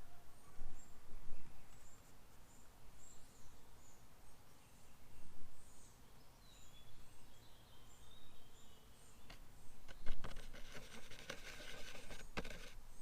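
Outdoor garden ambience with small birds chirping and singing faintly. Near the end comes about two seconds of close scratchy rustling with a few clicks.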